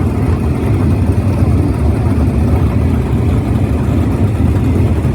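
Steady low rumble of a motor vehicle, with no distinct events.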